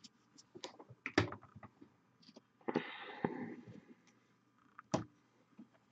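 Small plastic paint dropper bottle and miniature being handled at a table: scattered light clicks and taps, a louder knock a little over a second in, a brief scraping rustle around the middle, and a sharp click about five seconds in.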